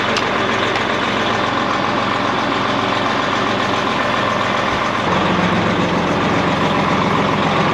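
Truck engine idling steadily, picking up a little about five seconds in.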